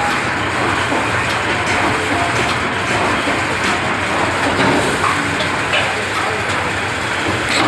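Automatic wire mesh welding machine running: a steady mechanical din with intermittent clacks.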